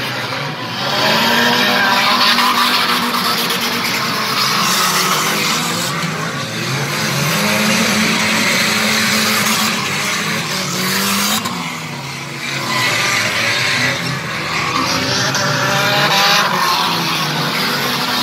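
Several stock car engines racing together, their pitch rising and falling as the cars accelerate and lift off round the track, with a brief lull about twelve seconds in.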